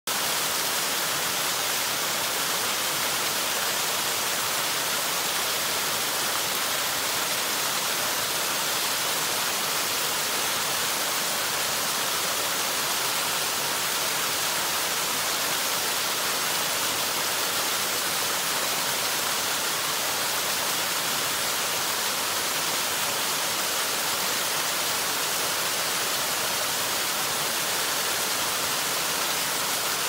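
Small forest waterfall pouring over rocks into a pool: a steady, unbroken rush of falling water, strongest in the high, hissing range.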